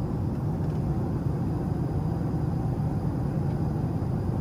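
Steady low cabin noise of a jet airliner in flight: engine and rushing-air noise heard from a passenger seat.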